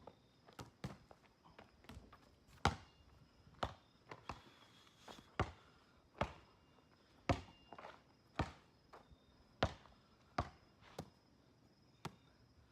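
A series of short, sharp knocks and taps at uneven intervals, about one a second, some louder than others.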